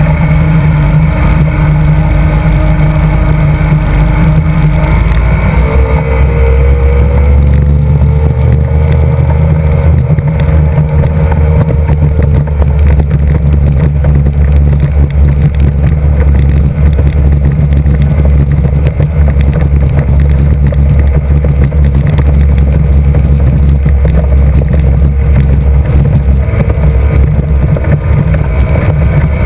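Mercury 2.5 EFI V6 two-stroke racing outboard running at full throttle, loud and close. Its note rises about five seconds in, then holds steady.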